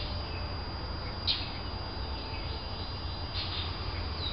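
Birds calling: a few short sharp chirps one to two seconds apart, with fainter falling whistles between them, over a steady high-pitched tone and a low background rumble.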